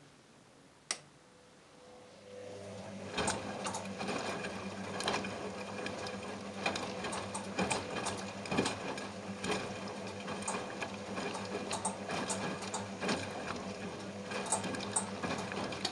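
Front-loading washing machine turning its drum during a wash tumble: the motor hums steadily while the water and a soaked plush toy slosh and splash inside, with scattered clicks. A single sharp click about a second in; the tumbling starts about three seconds in and stops at the very end.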